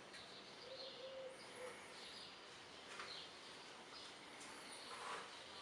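Faint birds chirping, short high calls repeating over a quiet background hiss.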